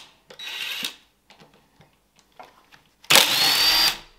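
Cordless drill spinning a socket in two short bursts to undo a fastener on a transmission shifter linkage: a brief, quieter run near the start and a louder run about three seconds in, with a rising whine.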